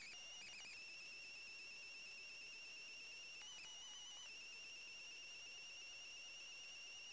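A faint, steady high-pitched whine with overtones that holds an even pitch throughout, wavering briefly a couple of times, with nothing else audible.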